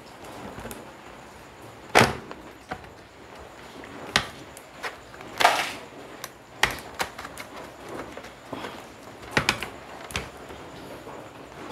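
Plastic snap clips on the bottom cover of a Lenovo IdeaPad 100-14IBD laptop clicking loose one after another as the cover is prised off by hand. About ten sharp clicks and cracks, with a longer scraping crack about halfway through.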